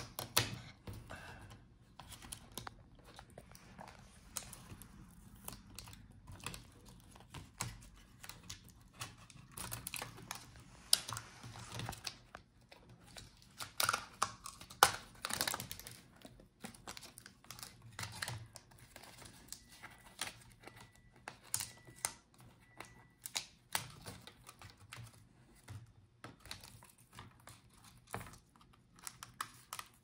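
Irregular clicks, scrapes and rustles of hands working a laptop motherboard loose from its chassis and lifting it out, with a louder run of scratchy sounds midway.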